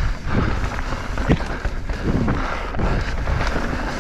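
Enduro mountain bike descending dry dirt singletrack: wind rushing over the microphone and tyres rolling over the dirt, with the bike rattling and a few sharp knocks over bumps, one about a second in.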